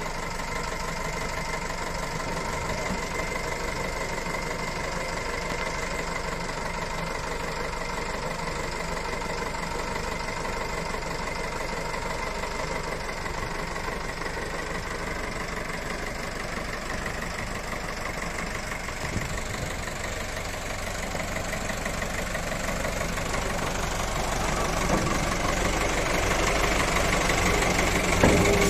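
OM Cerbiatto truck's diesel engine running steadily at idle while it drives the hydraulic ram that raises the tipper body, the sound growing somewhat louder over the last few seconds. A single sharp knock near the end.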